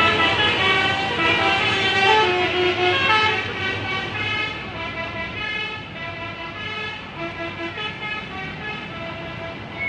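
Bus telolet horn playing a tune: a string of multi-tone horn notes stepping up and down in pitch, growing quieter over the second half.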